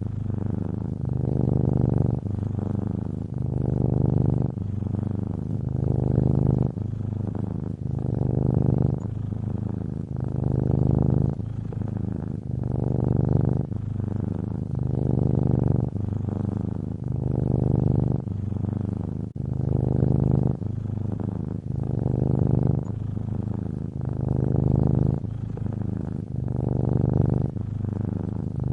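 A cat purring: a low, continuous rumble that swells and eases with each breath, about one breath every two seconds.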